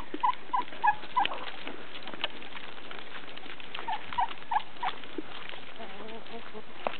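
Ex-battery hens clucking in two runs of short notes, about three a second, one at the start and another about four seconds in. A light patter of footsteps on grass and dry leaves runs underneath.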